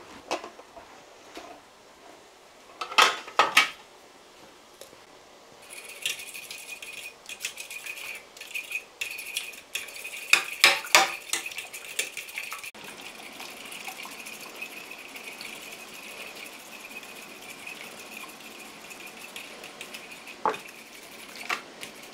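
A fork clinking and scraping against a bowl as spiced eggs are beaten. A couple of sharp knocks come first, then quick rhythmic clinking that is loudest about halfway through and settles into a steadier scraping near the end.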